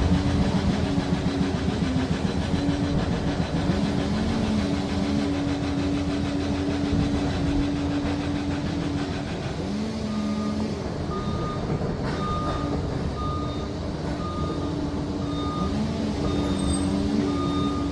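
Liebherr PR 746 crawler dozer working under load, its diesel engine running with a drive whine that rises and falls. About halfway through its reversing alarm starts, beeping about once a second as the dozer backs up.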